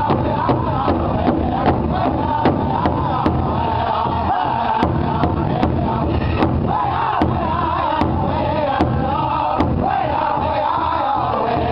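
Powwow drum group singing in high, wavering voices over the unison beat of a large shared hide drum struck by several drummers with sticks, about two and a half beats a second. The drumbeats stop about ten seconds in while the singing carries on.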